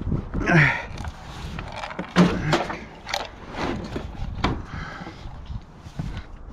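Hot water heater tank being manhandled: a series of knocks, clunks and short scrapes of the metal tank, with a falling scrape early on and the loudest knock about two seconds in.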